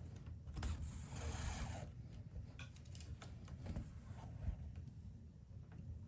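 Hand saddle stitching leather: thread is drawn through the stitching holes with a rasping hiss lasting about a second, just after the start, followed by light clicks and handling noise.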